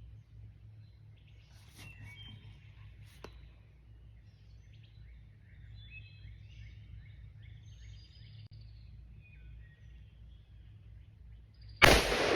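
Birds chirping faintly over a low steady background rumble, then near the end a single loud shot from an AR-15 rifle firing 5.56 ammunition, with a trailing echo. It is the first shot fired from the newly built rifle.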